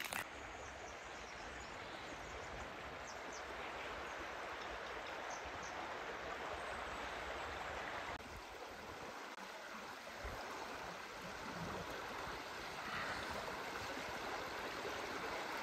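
Shallow stream running over stones and gravel riffles with a steady rush of water.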